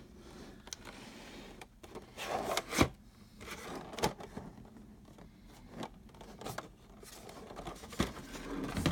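Handling noises from unboxing crate items: intermittent rustling with a few sharp clicks or light knocks, the clearest about three seconds in, about four seconds in and near the end.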